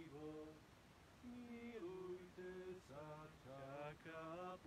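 Quiet, slow singing of a verse of a Slovak Advent hymn by a small group of voices, holding long notes and gliding between them.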